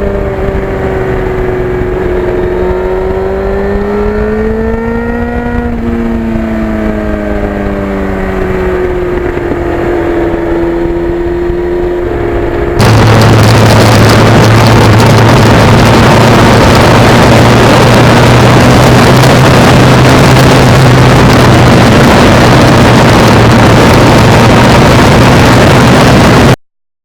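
Yamaha FZR1000 inline-four engine running on the road, its pitch slowly rising and falling. About 13 s in it changes suddenly to a louder steady drone at lower pitch under heavy wind rush.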